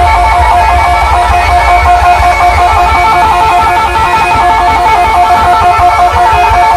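Loud DJ music: a fast plucked-string melody flicking back and forth between two notes over a heavy bass.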